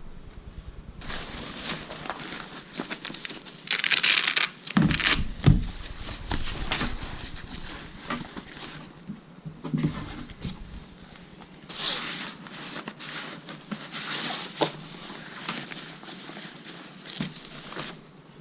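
Handling of a new Minaal 2.0 carry-on backpack: irregular rustling of fabric and packaging, with a few short zipping sounds and small clicks.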